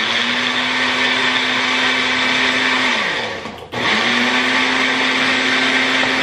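A Magic Bullet personal blender blending a smoothie in two pulses. The motor runs at a steady pitch for about three seconds, winds down about three seconds in, then starts again and runs steadily as the cup is pressed down once more.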